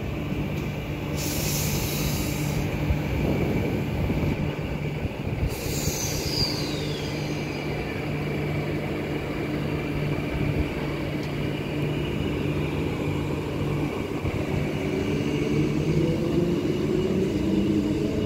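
Transperth B-series electric train humming steadily at the platform, with two short hisses about a second and about five seconds in. From about 14 s a rising whine starts as its traction motors pull the train away from the station.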